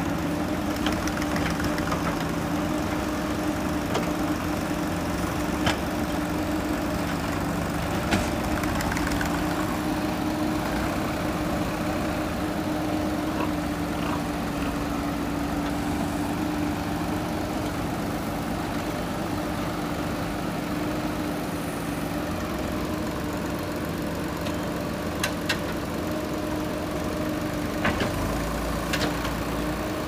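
JCB 3DX backhoe loader's diesel engine running steadily at one pitch while the backhoe arm digs, with a few short sharp knocks scattered through.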